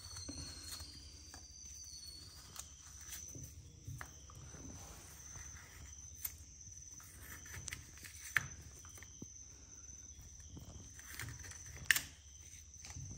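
Faint, intermittent scraping of a metal coconut scraper tool scooping flesh out of a coconut half, with a few sharper clicks of the metal against the shell.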